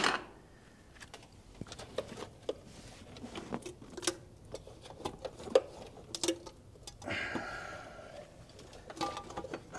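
Scattered light clicks and knocks of metal parts being handled as an engine's intake manifold is worked loose and lifted off, with a couple of seconds of rasping noise about seven seconds in.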